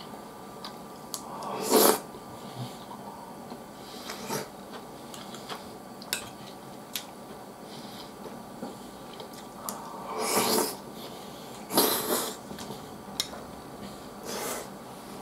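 A person eating a soft omelette in thick sauce with a metal spoon from a ceramic plate: scattered clicks of the spoon against the plate, and about five short noisy mouth sounds as mouthfuls are taken and eaten.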